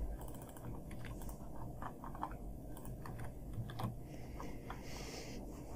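Faint computer keyboard typing: irregular key clicks.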